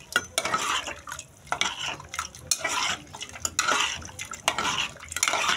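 A spoon stirring chicken curry in an aluminium pot, scraping and clinking against the metal in repeated strokes, about two a second.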